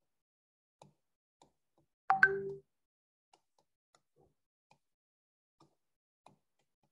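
Mostly quiet, with sparse faint clicks and one short, louder knock carrying a brief ringing tone about two seconds in.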